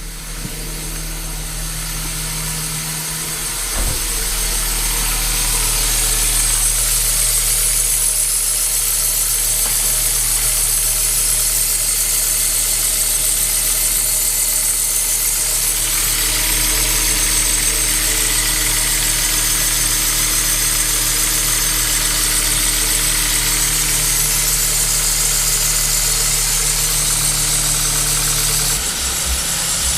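Kia Ceed's 1.6 petrol engine idling with no electrical load switched on, its accessory drive belt (alternator, water pump, tensioner pulley, air conditioning) giving a steady high-pitched squeal over the engine. The squeak persists even after belt dressing spray, which the owner says quiets it only for a few minutes; its cause is not yet found.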